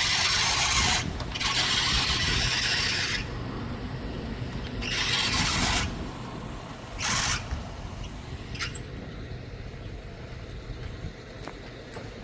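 A vehicle engine running low underneath four loud bursts of hissing noise in the first seven seconds or so, the second one the longest.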